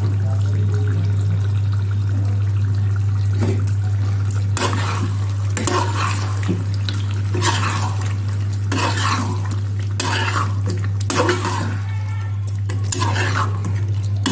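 Metal spatula scraping and knocking against a black kadai as chicken pieces are stirred together with curd in ghee. The strokes come about once a second from about four seconds in, over a steady low hum.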